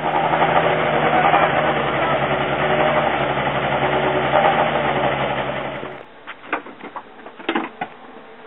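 Peugeot 207 rally car engine idling loudly with a fast mechanical rattle, cut off suddenly about six seconds in. After that come a few sharp clicks and knocks.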